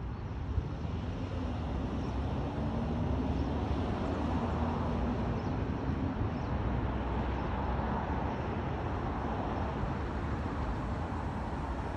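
Road traffic noise: a steady rumble of vehicle engine and tyres on the street, getting louder a couple of seconds in and then holding, with a faint engine hum.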